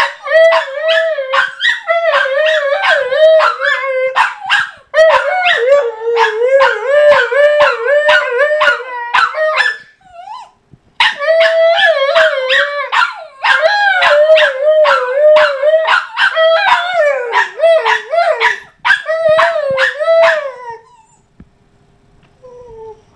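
German Shorthaired Pointer whining and howling in long, wavering high-pitched cries, nearly without pause, breaking off briefly about ten seconds in and trailing away near the end.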